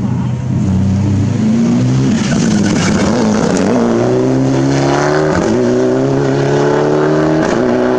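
Mitsubishi Lancer Evolution rally car's turbocharged four-cylinder engine running hard under acceleration. The revs climb in long pulls, broken three times by short dips at gear changes in the second half.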